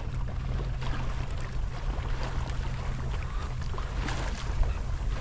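Wind buffeting the microphone in a steady low rumble, over water rushing and splashing along the hull of a sailboat under way.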